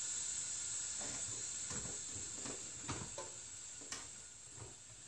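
Hiss of gas and fizz from a SodaStream bottle just carbonated with three presses, fading steadily, with a few faint taps in the middle.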